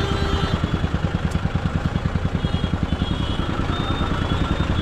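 Royal Enfield motorcycle's single-cylinder engine running at low revs in slow traffic, its exhaust beats evenly spaced and steady.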